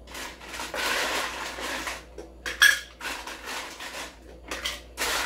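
Ice cubes rattling and clinking as they are scooped out of a countertop ice maker's bin and dropped into a cocktail shaker, in several bursts, with a sharp clink about two and a half seconds in.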